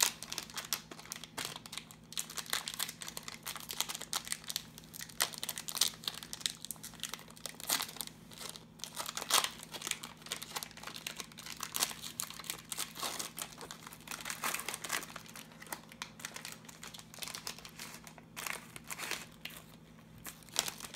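Silver foil wrapper of a trading-card pack being torn open and peeled off by hand, with irregular crinkling and tearing of the foil.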